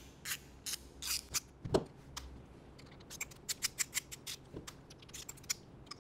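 Side cap being taken off a pneumatic control valve with an Allen key: a run of small, sharp clicks and scratches from the key, screws and valve body, coming thicker in the second half. A single dull thump a little under two seconds in is the loudest sound.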